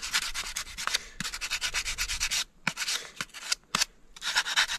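A 60-grit hand sanding block rasping back and forth along the edge of an old wooden canoe paddle in quick, even strokes, several a second. The sanding stops about halfway through, leaving a few light knocks, and starts again near the end.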